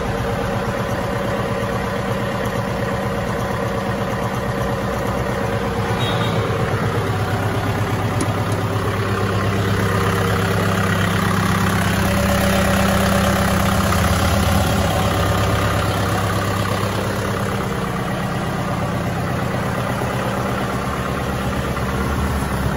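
Kubota M6040SU tractor's 2.4-litre turbocharged diesel engine running steadily at low speed, a little louder for a few seconds around the middle.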